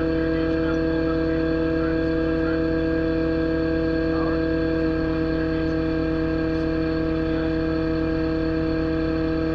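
Excavator's engine and hydraulics running at a steady idle with the boom and bucket held still: a constant pitched drone over a low rumble that does not change.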